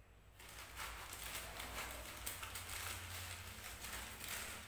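Thin plastic pouch crinkling and rustling in the hands as it is opened and worked, starting about half a second in.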